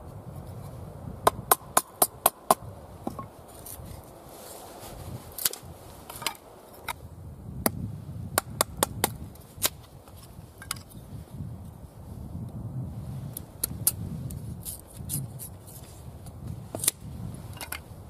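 A large knife splitting kindling sticks against a wooden chopping block, making sharp wooden knocks: a quick run of about five a little over a second in, a cluster in the middle, and scattered single knocks after that.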